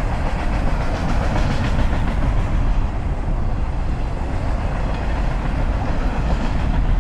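Diesel locomotive engine idling: a steady, unbroken running sound, heaviest in the low end.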